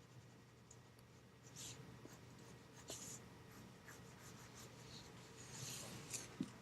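Graphite pencil scratching on paper in a handful of short, faint strokes.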